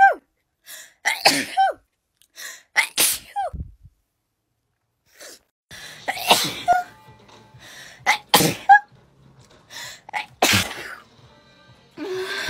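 A string of about seven or eight short, sharp human sneezes, separated by brief pauses. Several have a high, squeaky voice that falls in pitch.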